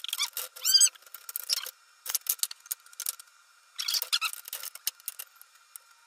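Steel plate and pulley parts being handled on a metal workbench: a squeak of metal rubbing under a second in, then scattered clinks and scrapes in three short clusters as the plate is moved over the bolt.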